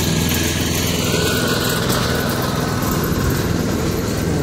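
Walk-behind lawn mower's engine running steadily as it mows the lawn and picks up fallen leaves and twigs.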